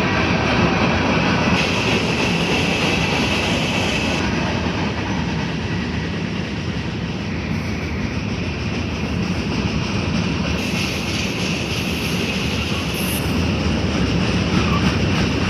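A train rolling past close by: a steady rumble and clatter of wheels on the rails, with a faint high whine from the wheels.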